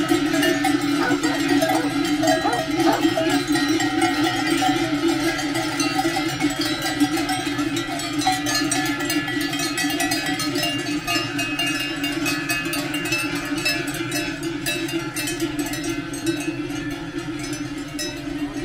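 Many cowbells clanging together without a break as a herd of cattle walks past, easing off slightly near the end as the last cows go by.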